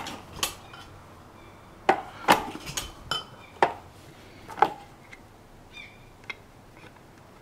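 A string of sharp metallic clicks and clunks at uneven spacing, about nine in all, from the shift rod linkage of a Suzuki DT 9.9 outboard being worked by hand as its gears are tried.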